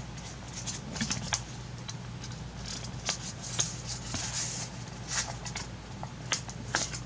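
Hands handling a plastic phone case and its packaging, making irregular light clicks and brief rustles.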